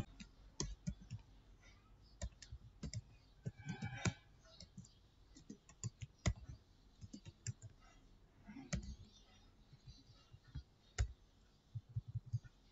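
Typing on a computer keyboard: irregular keystrokes with short pauses between runs of keys.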